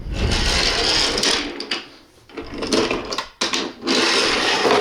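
Toy train running on wooden track: a small motor whirring with wheels rattling. It fades out about two seconds in and starts again twice.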